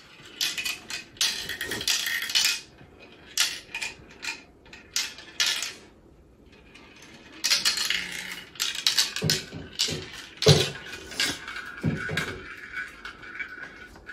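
Plastic marble-run toy pieces and marbles clicking and clattering, in irregular bursts with a short lull midway.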